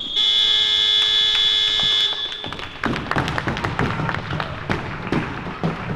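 Electronic game buzzer sounding one steady, high-pitched blast of about two seconds, plausibly marking the end of the game. A scatter of sharp taps and knocks follows.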